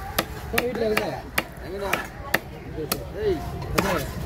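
A heavy fish-cutting knife chopping fish into pieces on a wooden log chopping block: about eight sharp chops, unevenly spaced, with voices faintly in the background.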